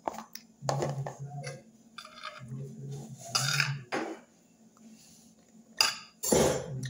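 Metal fork scraping and clinking against a bowl while scooping rice, several sharp clinks and short scrapes, the loudest scrape near the end.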